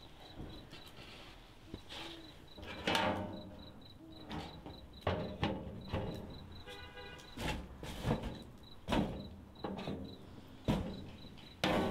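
Cinematic sound design: a string of whooshing swells and sudden hits, one every second or two, over a faint rapid high-pitched beeping pulse, with a short pitched tone about seven seconds in.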